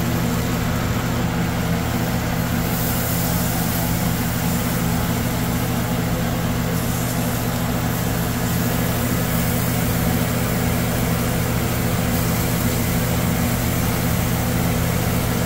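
Steady low machine hum made of several even tones, under a constant hiss.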